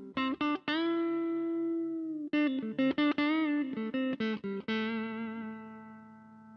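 Harley Benton TE-20 Telecaster-style electric guitar played: picked single notes and short phrases, one note left ringing for over a second, a quick run with vibrato about three seconds in, and a final note held and fading out. It is being played as a test of playability, just after a setup that lowered the nut slots and the treble pickup.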